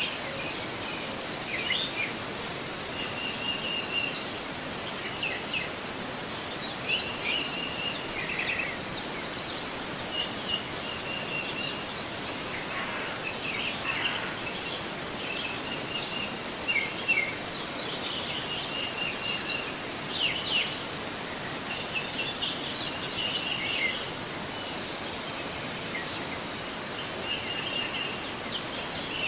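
River water flowing with a steady rushing hiss, with small birds chirping and trilling repeatedly over it.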